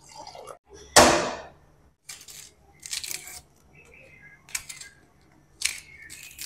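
Water splashing into an aluminium pot, then a single loud clatter about a second in, followed by short, crisp crackles and scrapes of dry onion skin being peeled off with a knife.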